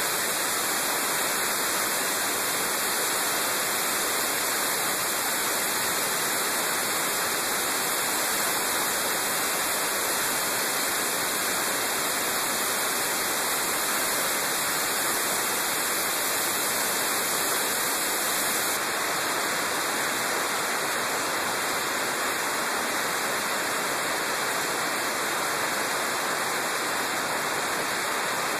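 Steady rushing hiss of wind over a motorcycle-mounted camera while riding, even in level throughout; no engine note can be picked out.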